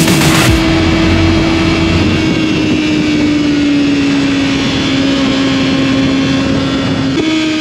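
Yamaha R6 sport bike's inline-four, fitted with a Yoshimura exhaust, running at steady high revs under part throttle over a rushing noise. Its pitch sags slowly, then lifts slightly near the end.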